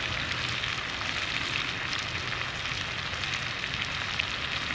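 Venison and fresh tomato sizzling steadily in a skillet over an open wood fire, with a few faint ticks through it.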